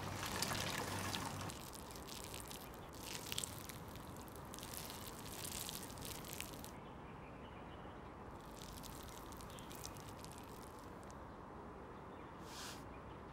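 Water dripping and trickling off boiled zongzi as they are lifted out of the pot by their strings, loudest for about the first second and a half; after that only faint handling sounds, with a few brief crackles.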